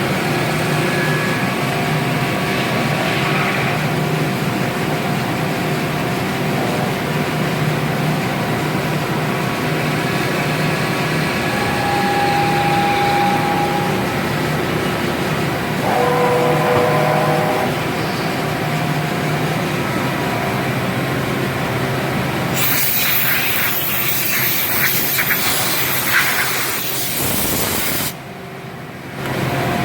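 Machine-shop noise: machinery running with a steady hum and several held tones, with brief higher tones rising out of it twice. About two-thirds of the way through, a loud hiss lasts for about four seconds.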